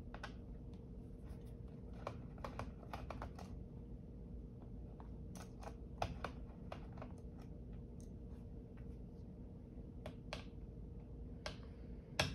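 Small irregular clicks and ticks of a screwdriver turning out the bottom-panel screws of a Dell Inspiron 13 7000 laptop, metal tip on metal screw heads, over a faint steady hum.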